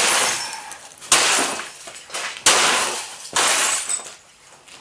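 Four heavy blows smashing a Gateway CRT computer monitor, each one a sharp crack followed by plastic and glass breaking and scattering, about a second apart.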